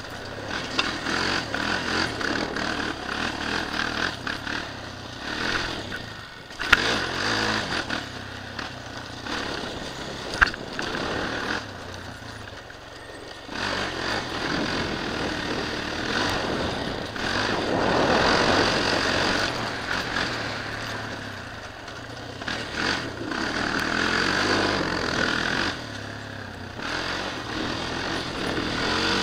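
Suzuki LTZ 400 quad's single-cylinder four-stroke engine revving up and down as it is ridden around a dirt track, with two sharp knocks about seven and ten seconds in.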